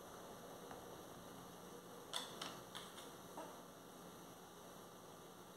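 Faint room hum with a quick run of about four light clicks and taps a little past two seconds in, from small plastic pots and play-dough cutters handled on a wooden table.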